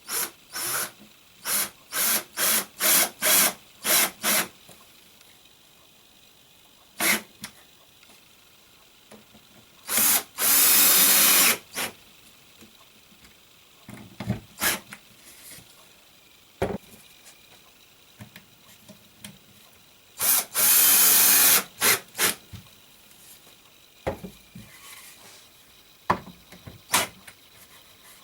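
Power drill run on the trigger while working wood: a quick series of short bursts at the start, then two longer runs of about a second and a half, with scattered knocks between.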